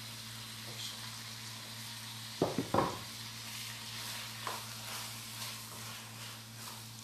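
Ground lamb, eggplant and tomato sauce sizzling in a wok as sliced bell peppers are tipped in and stirred with a spatula. A quick cluster of clatters comes about two and a half seconds in, the loudest moment, with lighter scrapes and clicks of stirring after.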